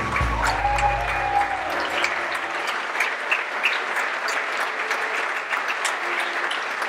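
Audience applauding, dense and steady clapping. The pit orchestra's last low note fades out during the first two seconds.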